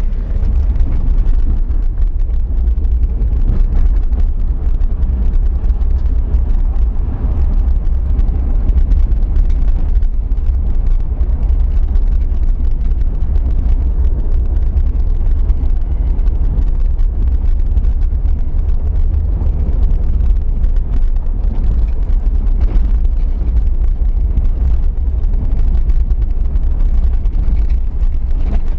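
Isuzu VehiCross V6 off-roader driving slowly along a rough dirt track, heard from inside the cab: a steady low rumble of engine and tyres on the dirt, with no distinct events.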